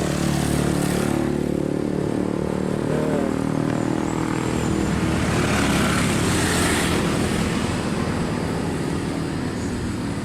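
A motor vehicle's engine running steadily, with a continuous low hum.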